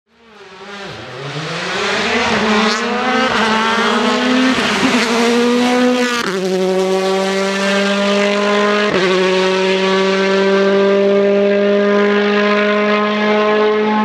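A Hyundai i20 WRC rally car's engine fades in and revs up and down through the gears for about six seconds. It then gives way to a steady, held tone with several overtones that carries on to the end.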